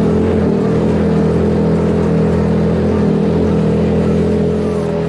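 Off-road 4x4's engine running at a steady low speed while the vehicle drives along a gravel track, a constant drone that holds one pitch.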